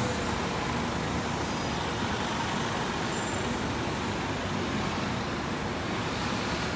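Scania K230UB single-deck bus's five-cylinder diesel engine running as the bus pulls away from the berth and drives off, heard as a steady even rumble. It fades out near the end.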